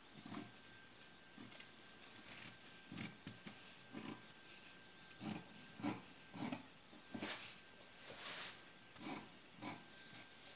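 Scotch-brand scissors cutting through fabric: a string of faint, irregular snips, about a dozen, as the blades close through the cloth.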